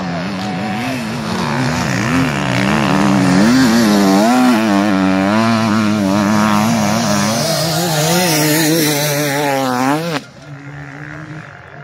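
Enduro racing motorcycle revving up and down hard as it comes closer, the rider working the throttle through the special test's turns. The engine climbs in pitch to a sharp rev near the end, then the sound drops off suddenly, leaving a fainter engine note.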